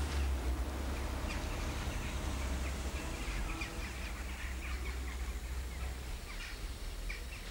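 Outdoor ambience of birds calling in short, scattered chirps over a low steady rumble.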